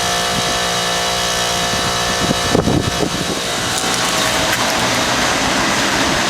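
Bard wall-mount heat pump with a Copeland scroll compressor running in cool mode: a steady machine hum made of several even tones. About halfway through there is a brief cluster of low bumps, after which the hum turns to a more even, airy rush.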